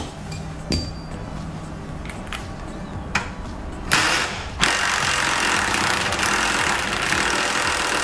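Cordless impact wrench on a 17 mm socket, loosening a tight seat-belt anchor bolt: a short burst about four seconds in, then running steadily for about three seconds before cutting off at the end. A few light knocks of the tool and socket being fitted come before it.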